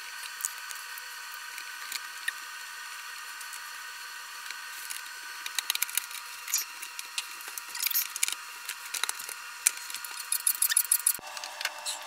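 Scattered clicks, taps and scrapes of plastic housing parts and a screwdriver being handled while a KitchenAid drip coffee maker is put back together, over a steady faint high hum.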